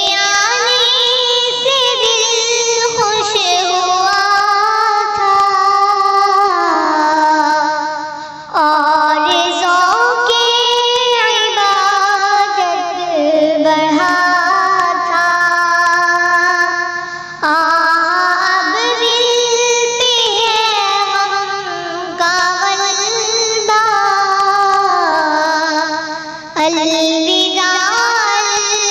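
A child's high voice singing an Urdu naat, an Islamic devotional song, in long phrases with sliding, ornamented notes and brief breaths between them.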